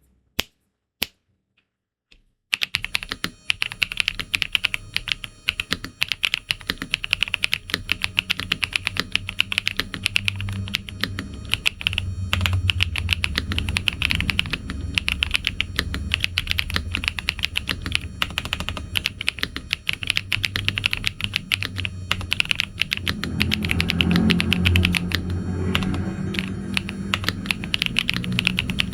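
Shadow Zeus 75 mechanical keyboard, with a plastic 75% case, Frappuccino switches and PBT Cherry-profile keycaps, being typed on. Two single keystrokes come first, then fast, continuous typing from about two seconds in, with a creamy clack.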